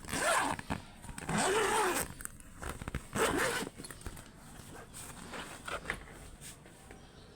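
Three short zipping rasps, followed by softer scrapes and clicks.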